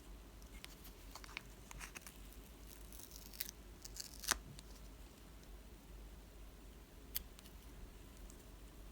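Scattered small clicks, crinkles and rustles of packaging being handled and opened in an unboxing, with a sharper click about four seconds in and another about seven seconds in.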